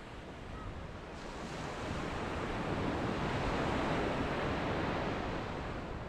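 Small ocean waves breaking on a sandy beach and washing up the shore; the surf swells to a peak a few seconds in and eases off near the end.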